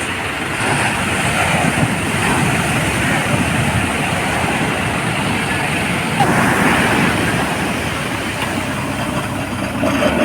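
Rough sea surf breaking on the beach, a loud, steady rush that swells about six seconds in, with wind on the microphone.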